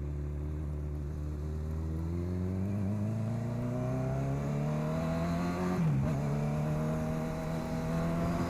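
Honda CB1000R's inline-four engine with an aftermarket sport exhaust, climbing steadily in revs under acceleration, dropping in pitch with an upshift about six seconds in, then climbing again in the next gear.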